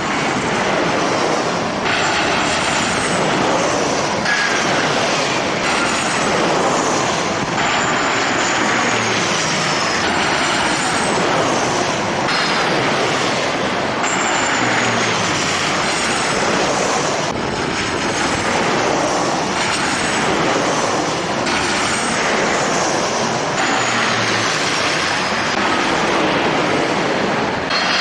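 Jet airliner engines running, a steady rush of noise with high turbine whines that slide down in pitch again and again.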